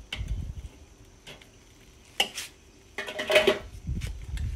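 Metal grill tongs clicking and clinking against a metal saucepan and the kettle grill's grate: a few single clicks, then a quick cluster of ringing clinks about three seconds in.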